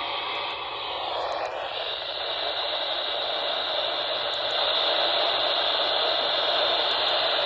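Radio static: a steady hiss of noise with no voice over it, wavering briefly in the first second or so before settling.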